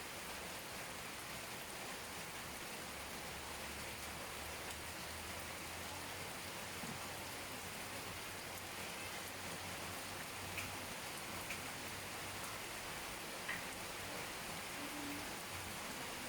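Steady rain falling, a dense even hiss with a few sharper drip ticks now and then.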